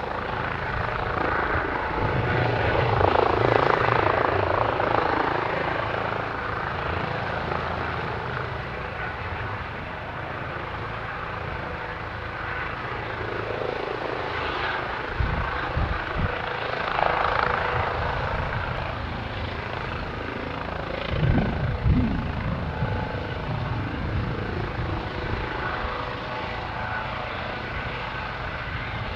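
Helicopter running, its rotor and engine noise steady, swelling louder a few seconds in.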